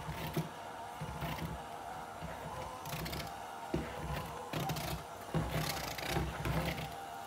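Electric hand mixer running with a steady motor whine, its beaters churning thick powdered-sugar icing and knocking and scraping against the bowl every second or so.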